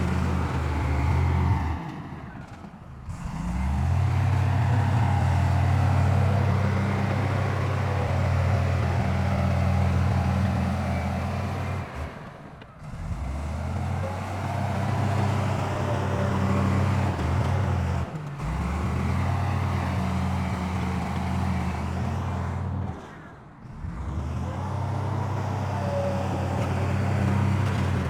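Heavy diesel earth-moving machinery running at a steady, deep pitch, broken by four short dips in the sound.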